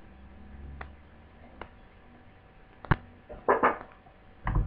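Scattered small clicks and a short clatter of tools and parts being handled on a workbench, the sharpest click about three seconds in and the loudest clatter just after it.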